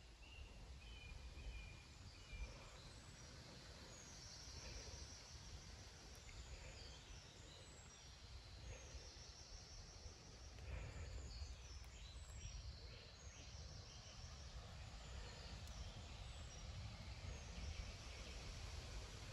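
Faint woodland ambience: a small songbird sings repeated short, high chirping phrases over a low, steady rumble.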